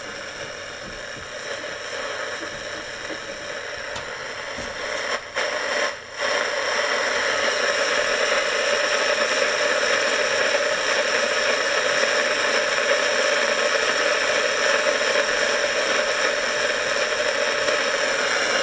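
Shortwave static from a 1940s BC-348 aircraft radio receiver's loudspeaker, steady hiss on the 13.5 to 18 MHz band. It drops out briefly twice about five to six seconds in, then comes back louder and steady. Loud static like this is the sign of a band that is working and sensitive.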